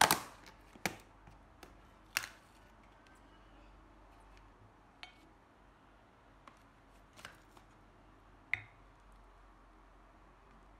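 Plastic takeaway container being opened: a few sharp crackles and snaps of the plastic lid and its paper band in the first couple of seconds. Then a few fainter knocks as food is moved onto a ceramic plate with a fork.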